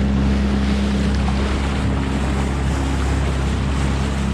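A boat's engine running steadily under a loud, even rush of wind and water.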